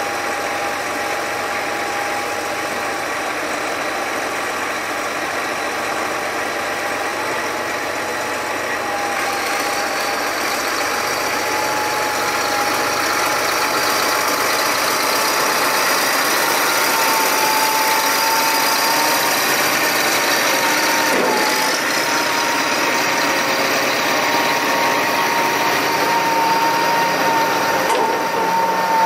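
Large farm tractor's engine running steadily while the hydraulics hold its tipping trailer raised to dump chopped corn silage. A steady whine sits over the engine and rises a little in pitch past the middle.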